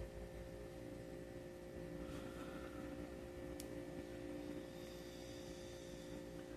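Quiet room tone with a steady faint hum and one faint click about three and a half seconds in.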